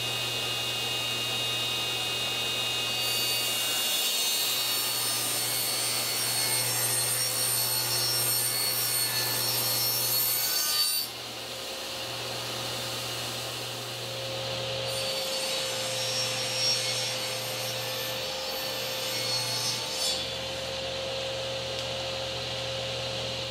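Table saw running, its blade cutting rabbets along the edges of 3/4-inch plywood panels. There is a long cut, a drop in level about eleven seconds in, then another pass.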